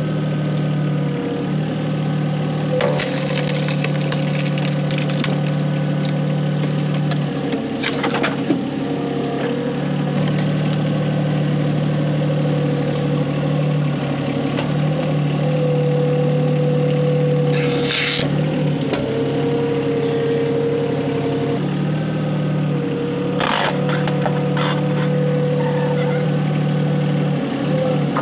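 Volvo EC20 mini excavator's diesel engine running steadily, with a hydraulic whine that comes and goes as the boom is worked. Several sharp wood cracks break through, a few seconds apart.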